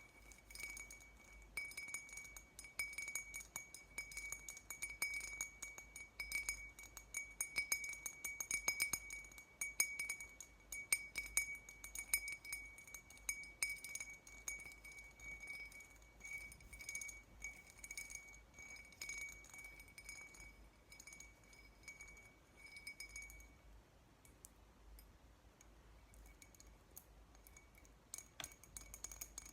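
Rapid, close tapping on a glass beer bottle, the glass ringing at a steady high pitch under the taps. The tapping stops a little after two-thirds of the way through and picks up again near the end.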